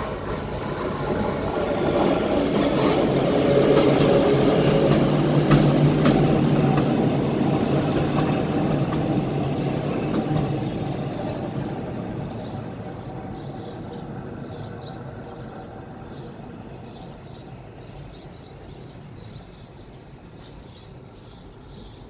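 Train passing by: a rumble that swells to a peak a few seconds in, then fades slowly as it moves away. Birds chirp faintly through the second half.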